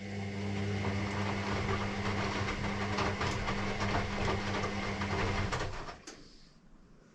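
Electrolux EW6S404WU washing machine running mid-wash: a steady low hum with a dense clicking, rattling noise over it, lasting about six seconds before it stops abruptly.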